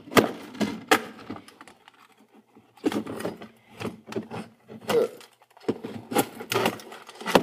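Hard plastic router casing and loose internal parts clattering, knocking and scraping as it is pried and banged apart, a rapid run of sharp knocks with a lull about two seconds in.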